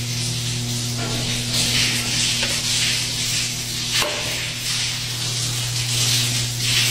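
Shower running unattended, a steady spray hiss, over a low steady hum. A soft knock comes about four seconds in.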